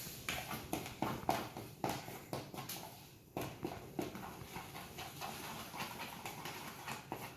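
Spoon or spatula stirring melted chocolate in a bowl: irregular light taps and scrapes against the bowl, about one or two a second.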